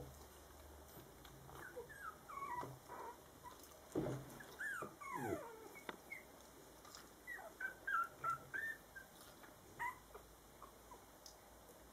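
A litter of 17-day-old puppies whimpering and squeaking while nursing: short high calls that slide down in pitch, several at a time, with the busiest bursts about four to five seconds in and again around eight seconds.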